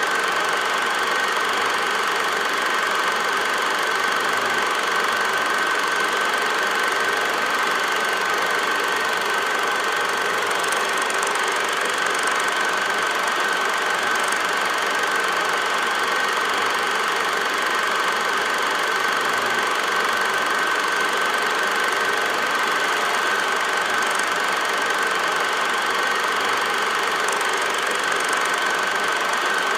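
A film projector running steadily, a constant mechanical whirr with a high whine; the silent 8mm film carries no sound of the steam locomotive on screen.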